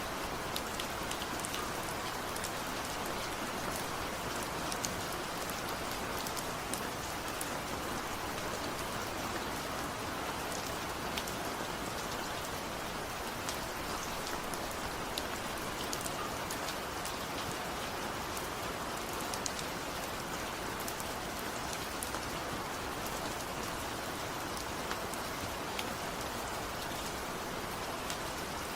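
Steady rain falling, an even hiss with many small drops ticking against a surface.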